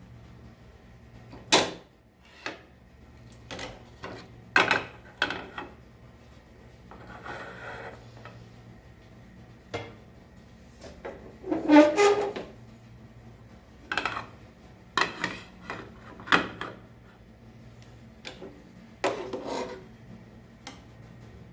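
Serving spoon scraping and clinking against a cooking pot in irregular strokes while nihari is dished out, with a louder ringing clank about twelve seconds in. A low steady hum runs underneath.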